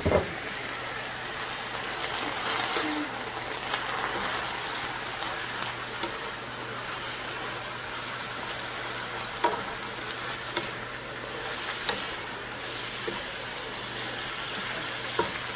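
Pea tips sizzling in hot oil in a wok as they are stir-fried, a steady hiss broken by scattered clicks and scrapes of a wooden utensil against the pan, with a sharp knock right at the start.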